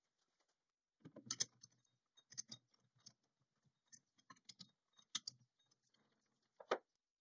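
Scattered light metallic clinks, clanks and rattles as a short steel blank is handled and clamped in a four-jaw lathe chuck. There are three louder clanks: about a second and a half in, near the middle, and near the end.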